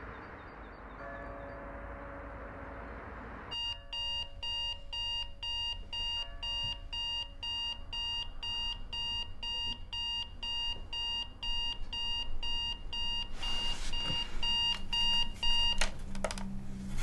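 Sony clock radio alarm beeping in a rapid, even rhythm, starting about three and a half seconds in. Near the end there is a rustle of movement, and the beeping cuts off suddenly, followed by a few clicks as a hand hits the clock.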